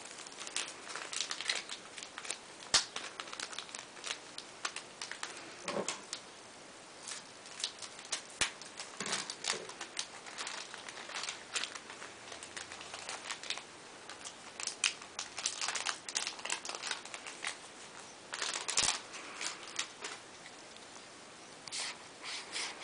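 Yu-Gi-Oh booster packs and cards being handled: foil pack wrappers crinkling and cards rustling and sliding against each other in irregular short rustles and soft clicks.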